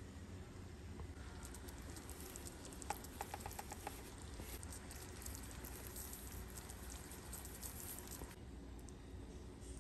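Mushroom gravy simmering faintly in a skillet with light crackling, over a low steady hum. About three seconds in comes a quick run of about seven clicks as a pepper mill is turned over the pan.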